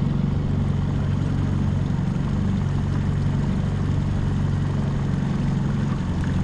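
Boat's outboard motor running at a steady speed, a constant low drone.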